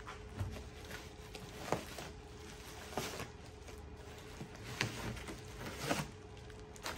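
Rustling and crinkling of bubble wrap and plastic wrapping as parts are handled inside a wooden shipping crate, with a few short, sharp knocks and clicks spread through it.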